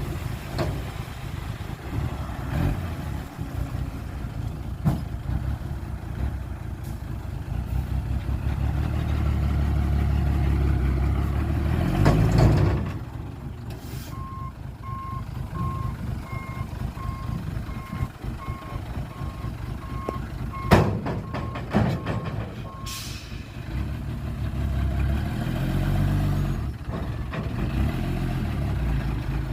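Diesel engines of heavy earthmoving machinery running, one swelling louder for a few seconds before the middle and again near the end. A reversing alarm beeps steadily, about three beeps every two seconds, for around nine seconds. A single sharp clank comes during the beeping.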